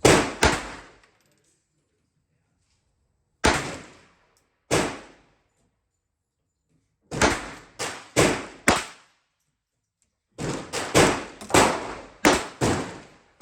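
Pistol shots fired in a string: more than a dozen sharp cracks, each dying away quickly. They come singly at first, then speed up to about two a second near the end.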